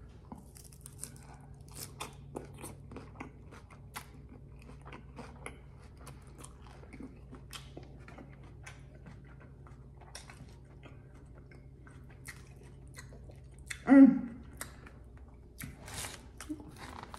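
Close-up chewing of crunchy salad (lettuce and seasoned tortilla strips), with many small crunches and mouth clicks. A brief, louder voice sound comes about fourteen seconds in.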